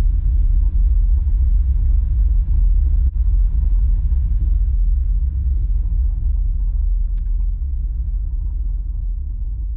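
Steady low rumble of a car driving, road and engine noise heard from inside the cabin, growing slightly quieter toward the end.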